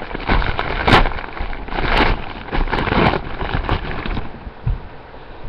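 Wrapping paper crinkling and rustling as a gift is torn open and unwrapped by hand, in repeated swells about once a second.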